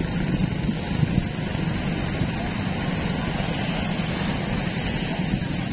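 Wind buffeting the microphone in a steady low rumble, over the wash of surf on the beach.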